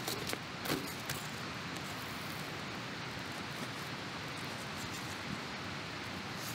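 Steady rushing outdoor noise, with a few sharp clicks in the first second or so.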